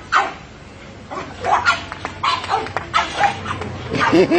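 Two dogs barking and yipping in short, quick bursts at a gate; a person's voice starts near the end.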